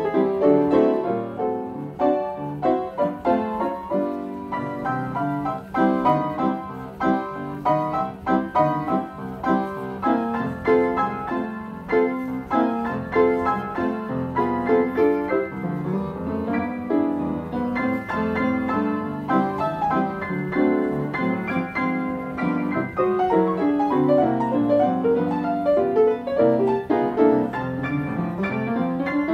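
Upright player piano playing a paper piano roll of a lively ragtime-era song, dense with notes; quick runs sweep upward about halfway through and again near the end.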